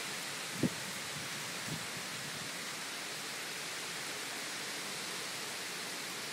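Heavy hurricane rain pouring steadily, a dense even hiss. A short low thump comes a little under a second in.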